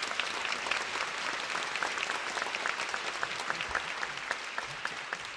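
Theatre audience applauding: many hands clapping in a steady patter that thins a little toward the end.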